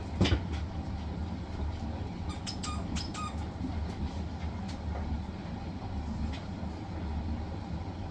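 Hisense washing machine on its spin cycle, its drum and motor giving a steady low rumble. There is a sharp knock just after the start and a few light clicks a little over two seconds in.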